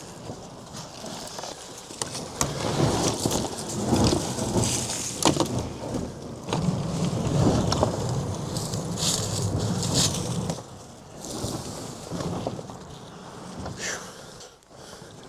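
Irregular scraping, rustling and crunching with scattered knocks: a person and gear moving through brush and dirt while climbing down a steep riverbank.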